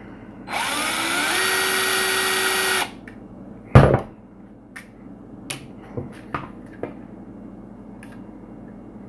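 Black+Decker cordless drill/driver running for about two seconds, its pitch rising as it spins up and then holding steady, backing a screw out of an RC truck's front end. A loud knock follows, then a few light clicks of plastic parts being handled.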